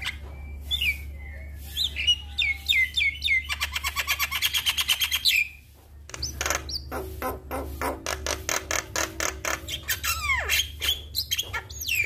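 Javan myna singing: slurred whistled notes, then a fast rattling chatter, a short pause about halfway, and another long run of rapid chattering notes with downward-sliding whistles near the end. A steady low hum lies underneath.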